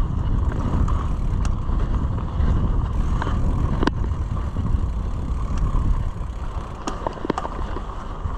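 Mountain bike ridden along a dirt trail: steady low rumble of tyres and wind on the camera microphone, with a few sharp clicks and rattles from the bike over bumps.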